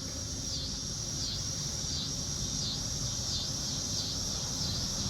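A steady, high-pitched insect trill that dips in pitch about every two-thirds of a second, over a low, steady background hum.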